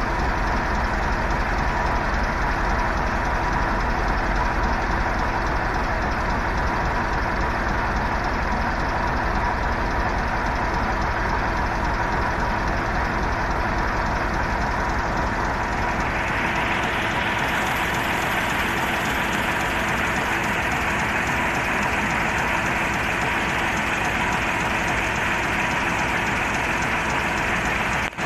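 Heavy diesel engine of an LTMG LT955 wheel loader running steadily, with a low knocking rumble. About 16 seconds in, the rumble fades and a brighter hiss grows louder.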